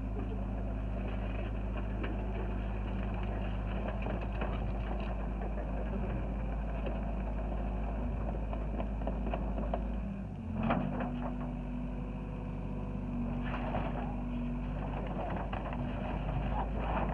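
Hyundai 60 compact excavator's diesel engine running steadily under hydraulic load while the bucket breaks up wooden building debris. About ten seconds in there is a sharp crunch and the engine note rises, with more clatter of breaking debris a few seconds later and again near the end.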